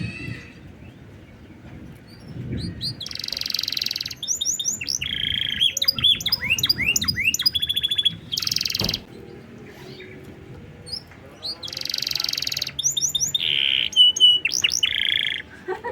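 Domestic canary singing: fast rolling trills and rapid sweeping whistled notes, in two bouts with a short pause in the middle.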